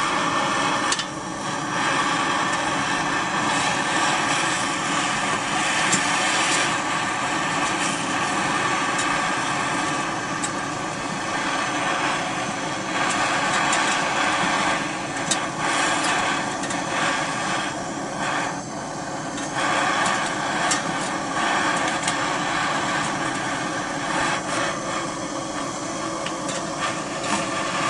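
Handheld gas torch burning with a steady, loud hiss, its flame heating a steel chainsaw starter recoil spring to red heat so the end can be bent without cracking. A few faint clicks sound over it now and then.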